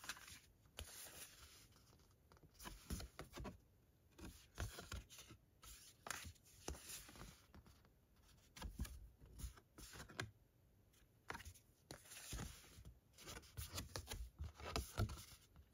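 Faint, irregular rustling and sliding of thick card prints being handled and shuffled one after another, with short quiet gaps between.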